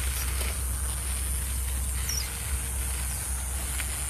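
Outdoor ambience: wind rumbling steadily on a phone's microphone under a steady high hiss, with one short high bird chirp about two seconds in.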